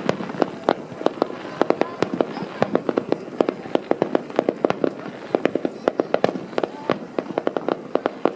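Fireworks display: a rapid, irregular string of sharp bangs and crackling pops from bursting shells, several a second.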